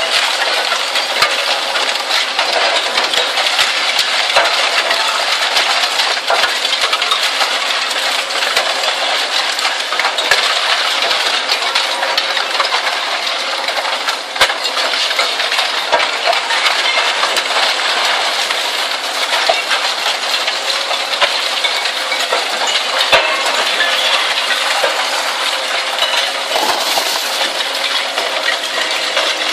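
Zato Blue Devil twin-shaft shear shredder tearing up scrap steel: a loud, unbroken clatter and clinking of metal with many sharp cracks, as shredded pieces pour from the discharge onto the pile.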